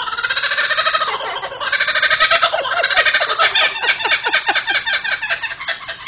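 Parrot calling loudly: a rising whistled note for about a second, then a rapid rolling, stuttering trill of about eight notes a second that tails off near the end.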